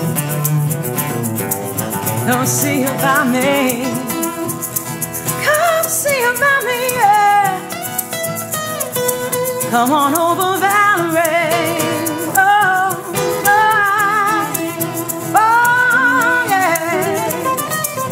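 Acoustic guitar strumming with a hand shaker keeping a steady, fast rattle, while a woman sings a wordless melody with vibrato over them.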